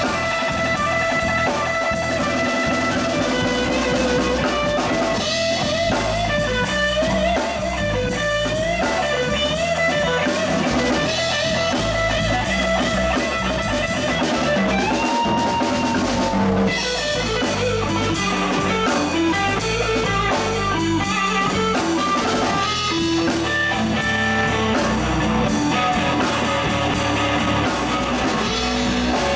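Small live band playing an instrumental passage: an electric guitar lead line with bent notes over electric bass and drum kit.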